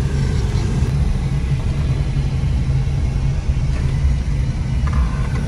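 Car driving, heard from inside the cabin: a steady low rumble of engine and road noise. A brief higher tone comes near the end.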